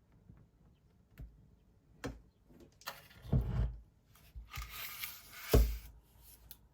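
Kitchen handling sounds: a few light clicks, then two stretches of noisy scraping and shuffling, each with a dull knock. The second knock, near the end, is the loudest.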